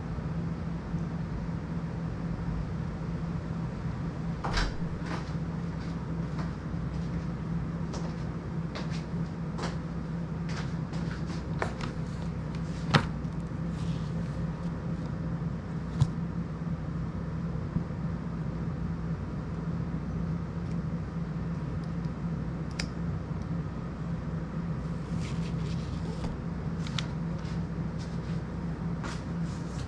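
Scattered clicks and knocks from a small FPV cinewhoop drone and its battery being handled on a table, with a few sharper knocks in the middle, over a steady low hum.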